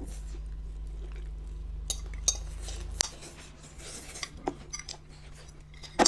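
Forks clinking and scraping against plates of chow mein during fast eating, with a few sharp clinks. A steady low hum underneath cuts out about halfway through.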